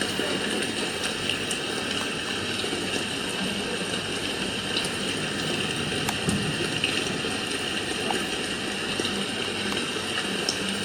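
Alarm clock radio's built-in sound machine playing a steady rushing-water sleep sound through its small speaker.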